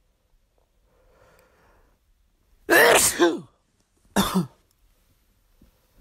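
A person sneezing twice. A faint breath in comes first, then a loud sneeze about three seconds in whose voice falls in pitch at the end, and a second, shorter sneeze about a second later.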